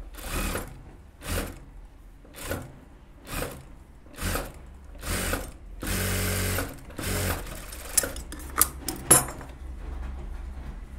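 Industrial lockstitch sewing machine stitching in short start-stop runs about a second apart, with one longer run near the middle, sewing down the gathers of a puff sleeve. About eight seconds in the stitching stops and three sharp clicks follow.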